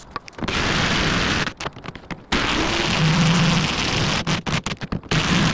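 Impact wrench hammering on rusted leaf-spring U-bolt nuts at a truck axle. It runs in two long bursts, then a string of short stop-start bursts near the end.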